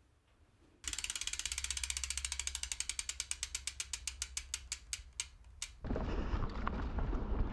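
Mountain bike rear freehub ratchet clicking as the back wheel spins freely: a rapid run of clicks that slows and spaces out as the wheel winds down, stopping about six seconds in. A rough, steady noise follows.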